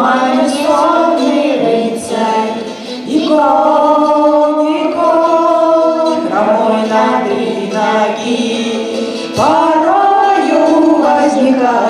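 Women's and a boy's voices singing a Russian folk-rock song together in harmony, holding long notes, accompanied by ukulele and violin.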